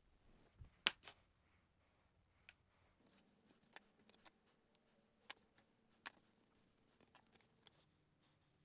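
Near silence with scattered faint clicks and taps of small parts handled over a paper plate while two-part epoxy is mixed, with one sharper click about a second in and a faint steady hum from about three seconds in.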